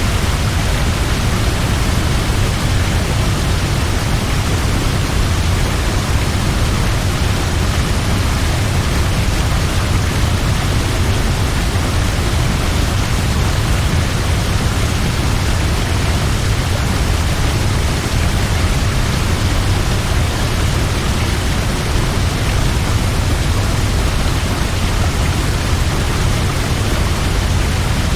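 Large waterfall roaring over a cliff and plunging into a river: a loud, unbroken rush of falling water with a deep low rumble underneath.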